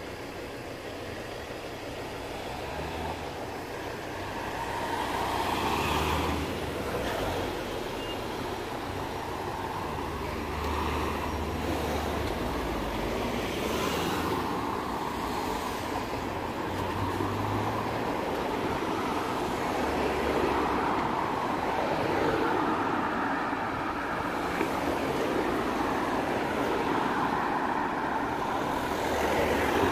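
Road traffic: cars passing one after another on a town street, a steady wash of engine and tyre noise that swells and fades as each goes by.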